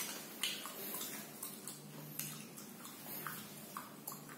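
Faint chewing of Pringles potato crisps: scattered small crunches and mouth clicks over a low room hum.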